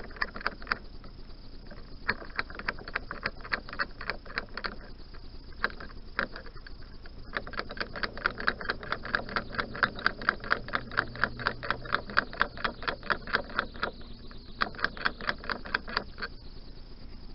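Stiff gudgeon pin being drifted out of a 1988 Yamaha DT125R piston: a rapid run of sharp clicks, about five or six a second, thinning out for a couple of seconds early on and strongest in the middle. A terrible sound, which the owner puts down to the knurling on the pin catching on the piston.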